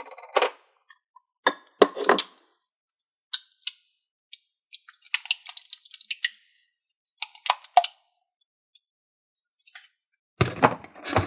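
Slime being squeezed and stretched by hand: irregular wet pops and crackles in short bursts with silent gaps between, and a louder run of them near the end.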